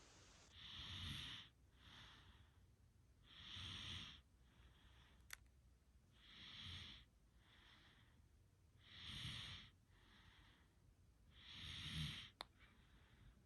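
Slow, regular snoring breaths, faint: five louder, hissing in-breaths with a low snore, about two and a half seconds apart, each followed by a softer out-breath. Two faint clicks come in the middle and near the end.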